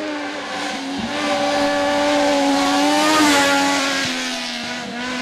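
A 600 cc class racing motorcycle's engine running hard as the bike comes through the bend, its note held nearly steady and growing louder to a peak about three seconds in, then fading as it goes away.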